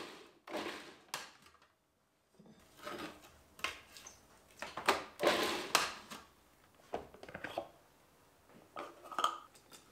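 Plastic food processor parts being handled: a string of short knocks, clicks and scrapes as the lid is taken off and the bowl is lifted from the motor base.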